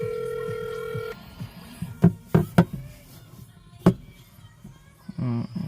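A steady beep-like tone for about a second, then sharp knocks: three in quick succession about two seconds in and a fourth a second and a half later. A voice-like sound starts near the end.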